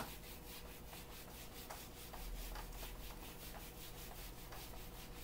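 Felt whiteboard eraser rubbing across a whiteboard in quick, repeated wiping strokes, a faint rubbing.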